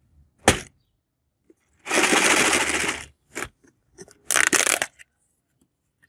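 A clear plastic tub of dry, colourful papad tubes is set down with a sharp knock, then handled twice: the hard dry pieces rattle inside and the plastic lid crackles as it comes off.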